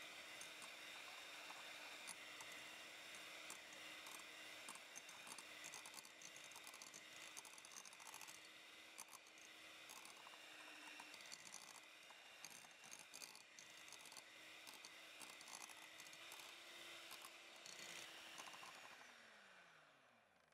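Electric hand mixer running steadily, its beaters whipping egg whites into meringue in a glass bowl, with a motor whine and scattered clicks of the beaters against the glass. Near the end it is switched off and the motor winds down, falling in pitch.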